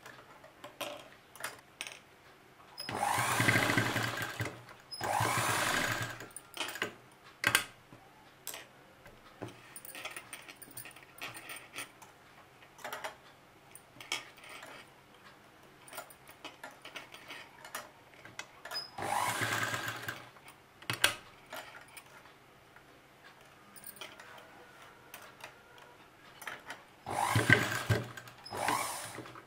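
Sewing machine stitching in four short runs of a second or two each, through fabric and piping. Between the runs come scattered light clicks and rustling as the cloth is shifted and guided.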